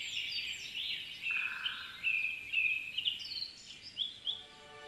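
Songbirds singing in woodland, a run of short chirped and whistled phrases. Soft music starts to fade in near the end.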